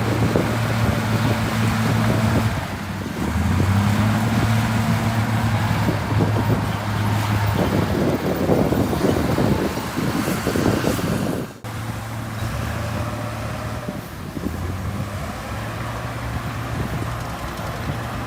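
Heavy diesel engine of earthmoving machinery running under load, its pitch stepping up and down. The sound drops out briefly about two-thirds of the way through and comes back a little quieter.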